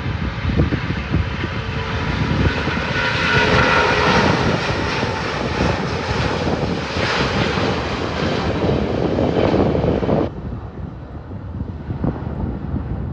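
Airbus A350's Rolls-Royce Trent XWB turbofans at takeoff thrust during the takeoff roll: a loud jet roar with whining fan tones that swells over several seconds. About ten seconds in the roar cuts off abruptly, leaving a low rumble.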